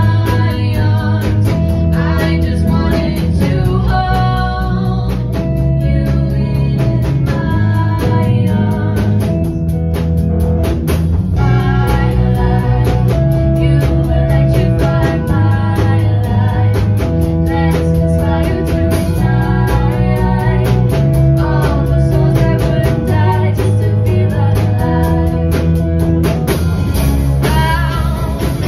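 Live rock band playing a song: electric guitars, bass and drum kit, with a singer's lead vocal over them.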